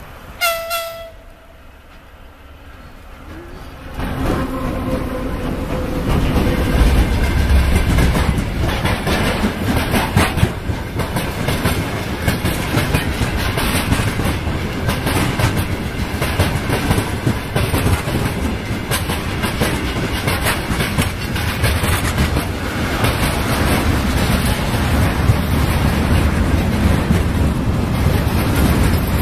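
A short blast of the VL10U electric locomotive's horn about half a second in, the driver's greeting; then from about four seconds the locomotive and a long freight train of gondola wagons and tank cars pass close by, loud and steady, with wheels clacking over the rail joints.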